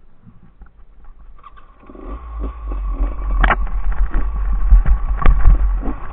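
Enduro motorcycle running, getting loud about two seconds in as a heavy low rumble with a steady whine, broken by a couple of sharp knocks.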